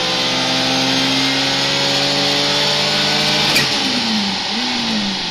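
Elmer Racing Rex billet racing engine, 45 mm FIA-restrictor version, pulling under load on a chassis dyno: engine revs climb steadily in a long pull. A short sharp crack comes about three and a half seconds in, and then the revs fall away as the pull ends.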